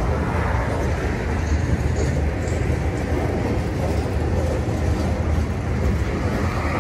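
CSX mixed freight train's boxcars rolling past, steel wheels on rail making a steady deep rumble.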